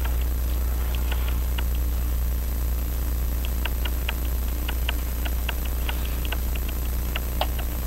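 Light metallic clicks and small taps of needle-nose pliers working brass taper pins into a Hermle clock movement's plates. The clicks are scattered, at a few a second in places, over a steady low hum.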